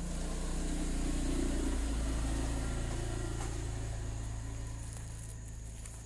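A motor vehicle passing nearby: a low engine hum that swells over the first two seconds and then slowly fades away.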